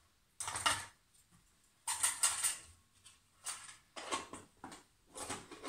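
Half-size metal mess tin full of cooking kit being handled and closed: several short bursts of metal clinking and scraping.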